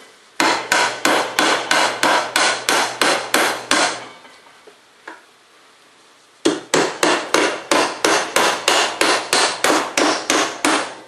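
Hammer driving nails into a 2x4 board: two runs of quick, steady blows, roughly three a second, with a pause of about two seconds between them.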